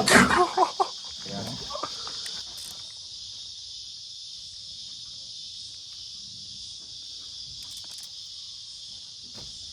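Steady high-pitched drone of an insect chorus, with a man's shout and a few words in the first second.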